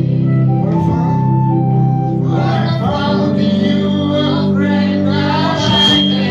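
Worship music: a sustained organ playing held chords, with voices singing over it from about halfway through.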